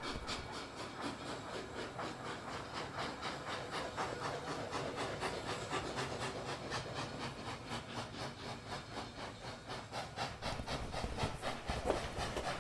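Rail vehicle running along the track, a steady rumbling rattle with many small clacks, as heard from on board.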